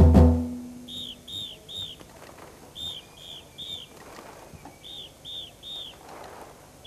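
One loud stroke on a large bass drum at the very start, ringing out briefly, then groups of three short, high, whistled chirps that repeat about every two seconds, like a bird call.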